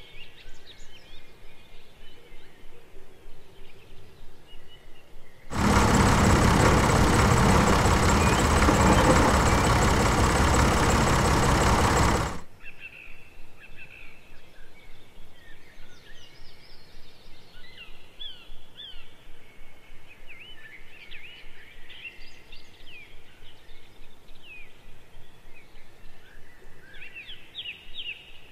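Birds chirping repeatedly. About five seconds in, a loud, steady rush of noise starts abruptly; it cuts off just as suddenly about seven seconds later.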